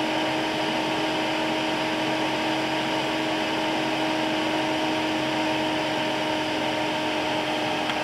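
Chinese diesel heater's combustion-air blower fan running steadily at about 2,700 rpm with the fuel pump off. It makes an even whir with a constant hum, the cooling phase in which the fan purges heat from the heat exchanger after shutdown.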